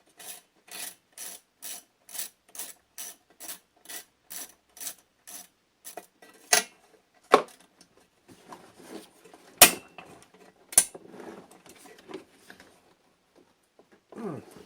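Hand ratchet clicking steadily, about three clicks a second, backing out the muffler bolts on a Stihl BR 600 blower engine. The clicking stops about six seconds in, followed by four sharp loud knocks and some light rattling of metal parts being handled.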